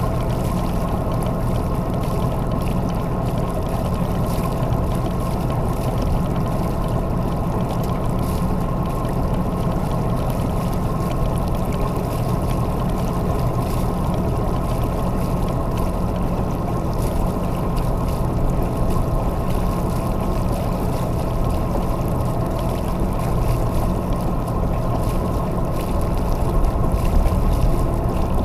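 Sailboat's inboard engine running steadily under way, a low, even drone mixed with the wash of water and wind.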